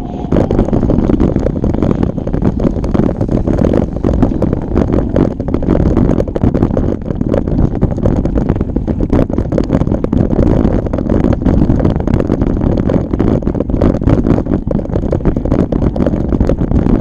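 Wind rumbling on the microphone of a camera carried on a bike riding a trail, with frequent small knocks and rattles throughout.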